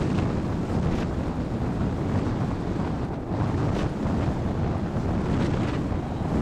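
Airflow rushing over the microphone of a camera mounted on a hang glider's wing in flight: a steady, heavy wind noise with small gusts now and then.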